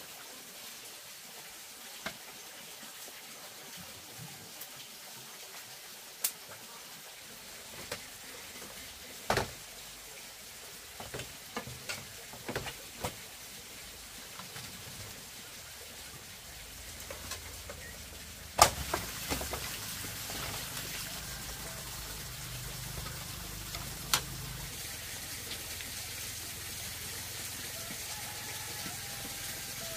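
Scattered sharp clicks and knocks. After a loud knock about 18 seconds in, a steady rush of running stream water takes over.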